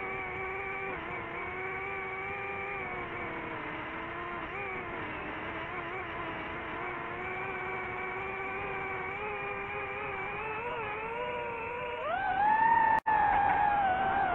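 DJI FPV drone's motors and propellers whining in flight, the pitch wavering up and down with throttle. About twelve seconds in the pitch climbs sharply and the whine gets louder as the motors spin up. Just after, the sound cuts out for an instant.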